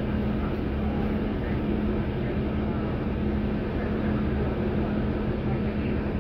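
Steady drone of a NABI 416 transit bus, heard from inside the passenger cabin: a constant low hum with no change in pitch.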